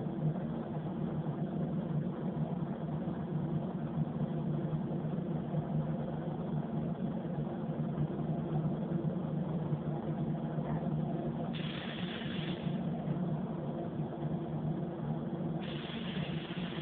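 Paint booth ventilation running with a steady low hum. About twelve seconds in, a gravity-feed spray gun gives a short hiss of air, and near the end its air hiss starts again and keeps going as spraying begins.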